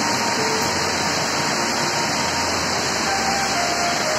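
Heavy tropical downpour: a steady, even hiss of rain, with water pouring in sheets off the edge of a corrugated metal roof.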